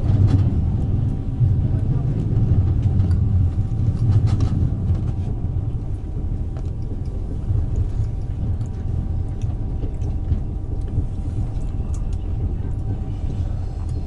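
Steady low rumble of a moving passenger train heard from inside the carriage, with a faint steady hum and occasional light clicks and rattles.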